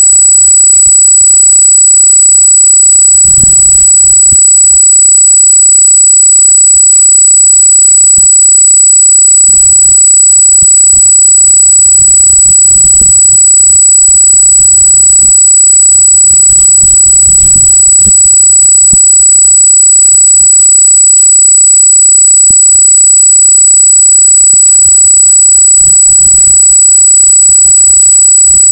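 A loud, steady high-pitched squeal of unknown origin on a trail camera's recording, with low rumbling that comes and goes underneath.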